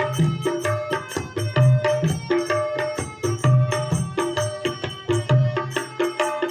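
Instrumental interlude of a Hindi devotional bhajan: a busy, steady hand-drum rhythm with deep low strokes under short repeated melodic notes.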